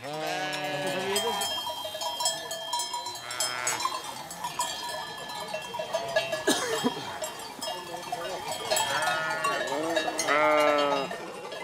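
A large flock of Valais Blacknose sheep bleating, many calls overlapping, with a few loud close bleats. Bells clank and ring among them.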